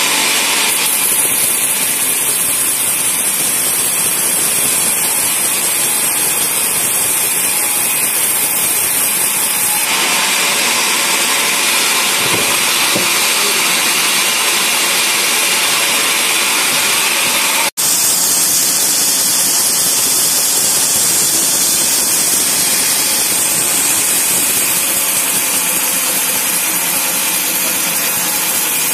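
Band sawmill running, its blade sawing through a log: a loud, steady rushing noise that breaks off for an instant about two-thirds of the way through.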